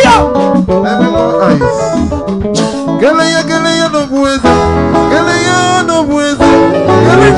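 Live band music: a guitar playing a lead line with bent and sliding notes over a drum kit, with some singing.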